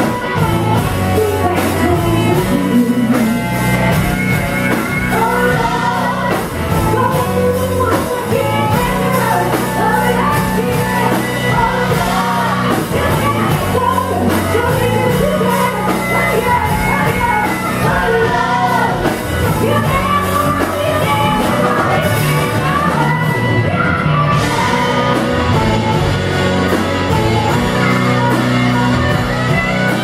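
A live band playing: a woman sings lead over drums and electric bass, with the sound of a large hall.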